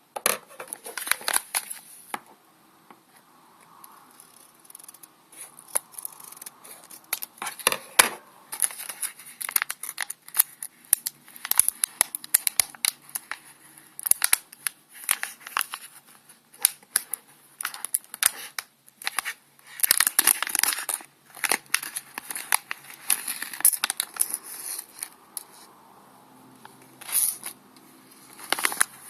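Hands opening and handling the plastic packaging of a small item: irregular crinkling, tearing and sharp clicks, with louder bursts about a second in, around eight seconds and around twenty seconds.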